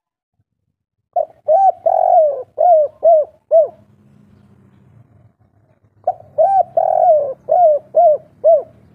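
Spotted dove cooing its 'kuk 3' song: two phrases of quick, rounded coo notes, each with a longer note in the middle, the first starting about a second in and the second near the end.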